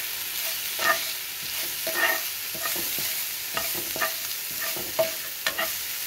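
Curry leaves and green chilies sizzling in hot oil in a frying pan, with a spoon stirring them and scraping against the pan in short strokes about once a second.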